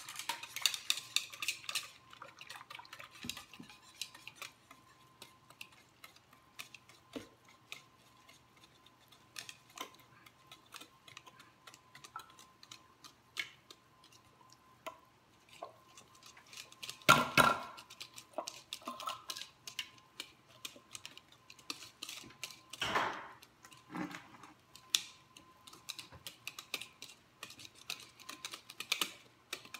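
Wire whisk clicking and scraping against a mixing bowl as cake batter is whisked, in quick, uneven strokes. There are louder clattering knocks about halfway through and again a few seconds later.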